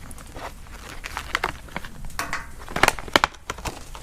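Deburring tool and its loose blades being handled: irregular small clicks, taps and rattles, with a quick cluster of sharper knocks about three seconds in.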